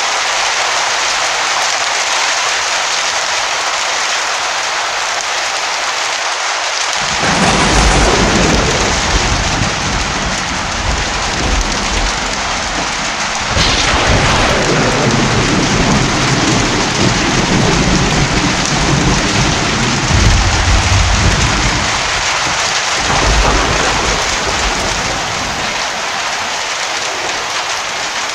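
Heavy rain falling steadily, with long rolls of thunder rumbling in about a quarter of the way through, swelling again near the middle and dying away near the end.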